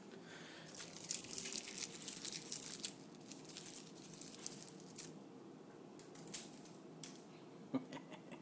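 Crinkly rustling for about two seconds starting a second in, then a few faint scattered clicks.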